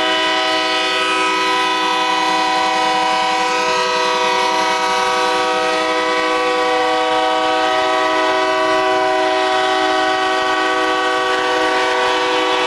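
Locomotive air horns sounding one long, steady multi-note chord without a break.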